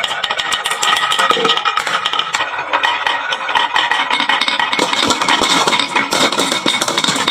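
Many marbles rolling and clacking down a wooden marble run slope, a dense, continuous rattle of quick clicks.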